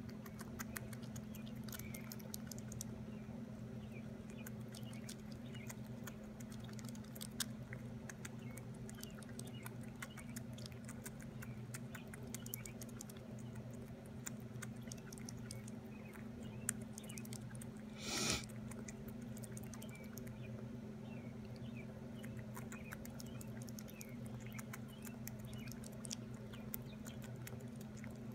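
A young fox squirrel nibbling a piece of fruit held in its paws: many small rapid clicks and smacks of its teeth, over a steady low hum. One short, louder noise comes about eighteen seconds in.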